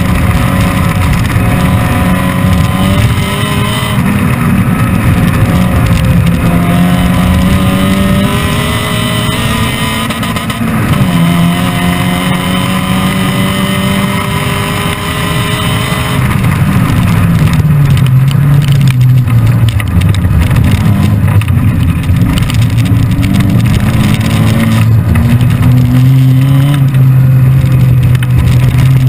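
Supercharged Mazda MX-5 four-cylinder engine in a MEV Exocet kit car, heard from on board at full load. Its pitch climbs steadily, drops back at the shifts and off-throttle moments, then climbs again.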